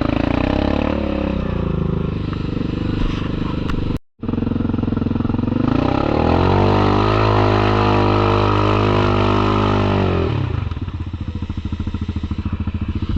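Yamaha Kodiak 700 ATV's single-cylinder engine running under throttle, cutting out briefly about four seconds in. It then revs up and holds high for about four seconds before easing back to a lower, steady speed.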